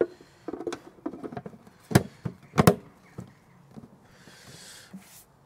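Hands handling small parts, likely the screws and charger cover: a few sharp clicks and knocks, the loudest two about two and three seconds in, then a brief soft rustle near the end.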